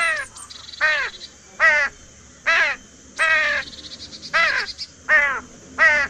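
A crow cawing in a steady series: about eight harsh caws, a little under a second apart, each dropping slightly in pitch at its end.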